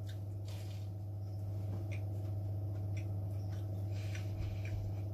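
Soft, scattered chewing sounds from a mouthful of sugar-coated fried doughnut, over a steady low hum.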